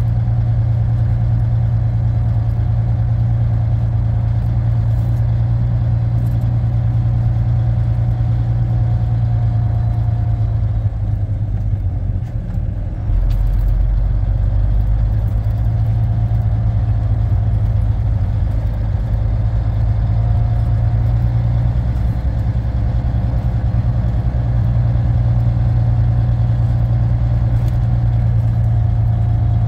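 Volvo VNL780 semi truck's diesel engine running steadily at low revs, a deep drone as the truck crawls along. The drone dips briefly about eleven seconds in, then a short, deeper rumble follows.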